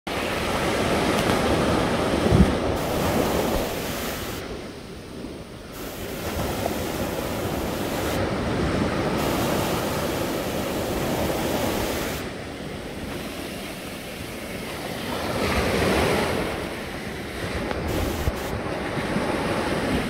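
Sea waves breaking and washing up a sandy shore, the surf rising and falling in surges every few seconds. A brief low thump about two seconds in.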